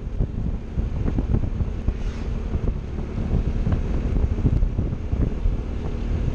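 Wind buffeting the camera microphone on a moving Piaggio MP3 three-wheeled scooter, with the scooter's engine running steadily underneath.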